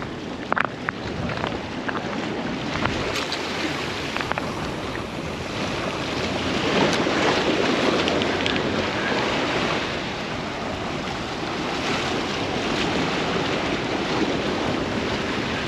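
Surf washing at a rock jetty, with wind on the microphone; the wash swells about six seconds in and eases after about ten seconds. A few faint clicks near the start.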